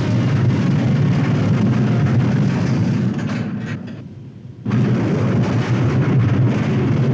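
Trash compactor machinery running with a loud, steady rumble. It fades a little past three seconds in and cuts back in suddenly about half a second later.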